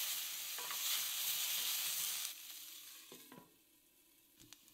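Cauliflower florets sizzling in hot oil in a stainless steel pan while a wooden spatula stirs them, with a few light scrapes. A little past halfway the sizzle stops suddenly, leaving near silence with a few soft clicks as a glass lid goes on the pan.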